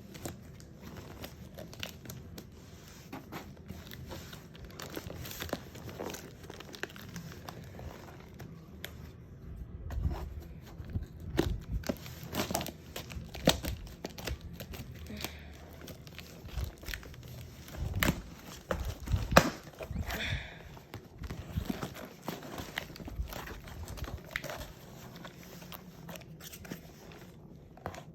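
Packaging being torn open and crumpled by hand: irregular crinkling, crackling and tearing, with louder bursts of handling in the middle stretch.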